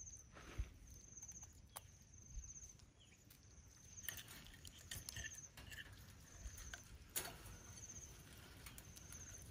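Faint, quiet handling: a few soft clicks and taps as small crabs and frogs are set down on a wire fan-guard grill over embers, most of them about four to five seconds in and a sharper one near seven seconds. A faint high chirp repeats about once a second.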